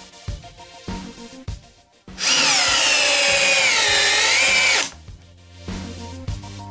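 Metabo SB 18 LTX BL I cordless drill driving a 5-inch LedgerLok structural screw into stacked OSB. The motor runs flat out for about two and a half seconds, its whine sagging in pitch under load as the screw goes in, then stops abruptly. Background music with a beat plays before and after.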